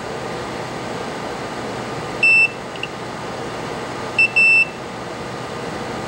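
Multimeter continuity tester beeping as its probe touches a jumper-wire repair. The beeps are short: one about two seconds in, then a quick double beep about four seconds in. Each beep signals continuity, that the connection is good.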